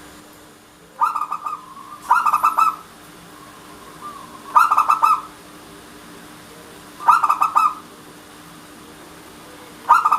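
Local Indonesian zebra dove (perkutut) cooing: five short phrases, each a rapid run of coo notes about half a second long, spaced one to three seconds apart.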